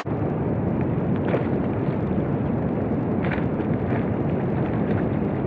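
Wind buffeting the microphone: a dense low rumble that drowns out the rush of the river.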